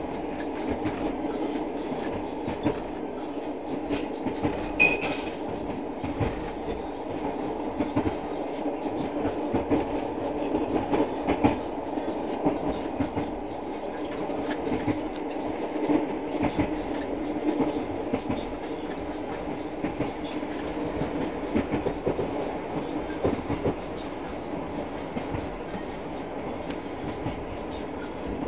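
Long-distance passenger train running steadily, heard from inside the carriage: a constant rumble of wheels on rails with scattered clicks. There is a brief high squeak about five seconds in.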